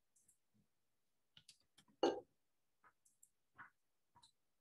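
Faint, scattered clicks and taps of a computer keyboard and mouse as text is typed into a web form and a button is clicked. One short knock about two seconds in is louder than the rest.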